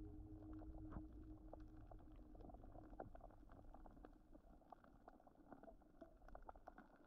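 Near silence: a faint low rumble fading away, with scattered faint clicks.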